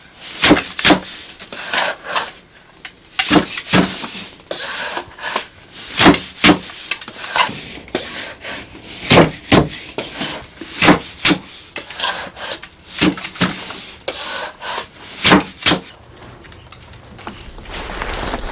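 Rhythmic rasping, scraping strokes, mostly in pairs about half a second apart, repeating every second or two; they stop about 16 seconds in and a low steady rumble follows.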